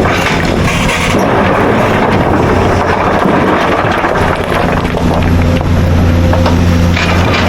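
Excavator's diesel engine running, with a steady low drone that grows stronger a little past halfway through.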